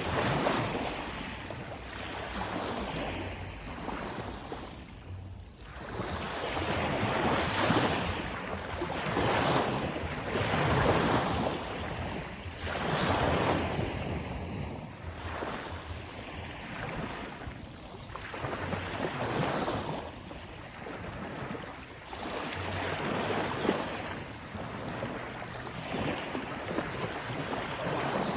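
Sea waves washing in, swelling and falling back every few seconds, with wind buffeting the microphone.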